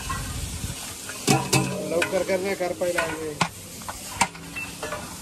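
A long steel ladle stirring and scraping in a large steel cooking pot as spices are tipped into hot oil and paste, which sizzles. From about a second in come a run of sharp clanks and scrapes of the ladle against the pot.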